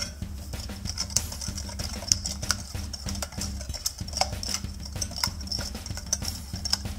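Stainless wire whisk clinking and scraping against the side of a glass mixing bowl in quick irregular strokes as flour is whisked into beignet batter, over background music.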